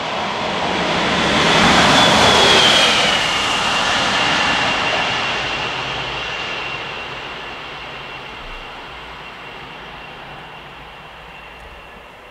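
Raildox class 185 (Bombardier Traxx) electric locomotive passing at speed. A rushing noise builds to its loudest about two to three seconds in, with a high whine that drops in pitch as it goes by, then fades slowly as it draws away.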